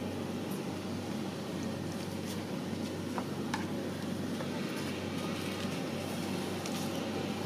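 Steady low rumble and hum of background noise, with a few faint taps a little past the middle as a cleaver cuts through boiled duck eggs onto a wooden chopping board.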